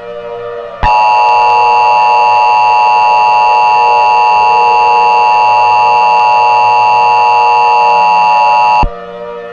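Emergency Alert System attention signal: a loud, steady two-tone alarm (the 853 and 960 Hz pair) starting about a second in, held for about eight seconds, then cutting off sharply. It sounds over a quiet ambient music bed.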